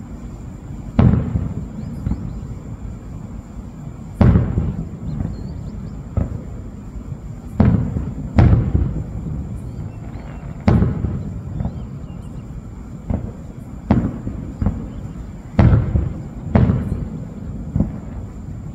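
Aerial fireworks shells bursting: about eight loud booms at irregular intervals, one to three seconds apart, each trailing into a low rumbling echo.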